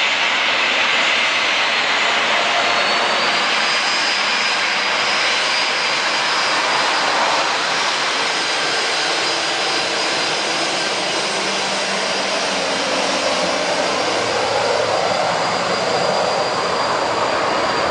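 Jet airliner engines running close by: a loud, steady rush of noise with a high whine that rises slightly about three seconds in and then holds steady.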